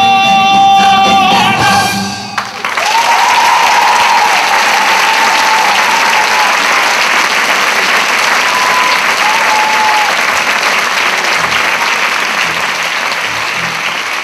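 A male lead singer, backed by chorus and orchestra, holds the final note of a musical-theatre number, and the music cuts off about two seconds in. A large theatre audience then applauds steadily, the clapping slowly dying down near the end.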